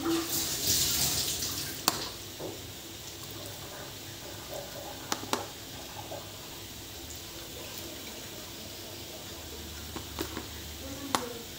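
Metal fork clinking a few times against a ceramic plate while food is served, with a brief hiss in the first two seconds over a low steady background hum.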